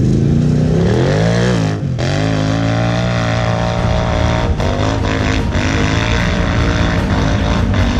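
ATV engine revving hard under throttle, pulling up a steep hill. Its revs climb over the first couple of seconds, drop sharply for a moment, then hold high and steady.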